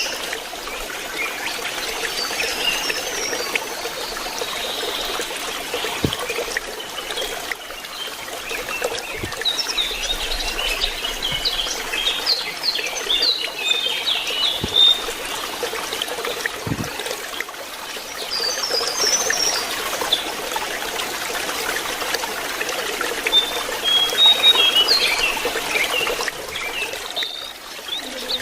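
Lesser shortwing singing in several bursts of quick, high twittering phrases over a steady trickle of running water.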